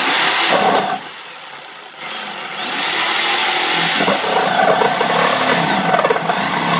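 Reciprocating saw cutting through drywall in several short trigger-pulls. The motor whine rises as it speeds up and falls away as it slows, each time over a rasping cutting noise.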